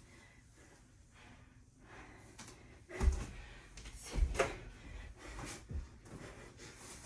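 Thuds of a person doing burpees, hands and feet landing on the floor. There are a few separate thumps about a second apart, the loudest about three and four seconds in.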